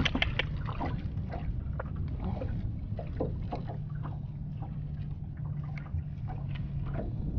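A hooked sac-a-lait (crappie) splashing at the water's surface beside the boat as it is reeled in. Scattered light clicks and knocks follow as the fish is lifted aboard, over a steady low hum.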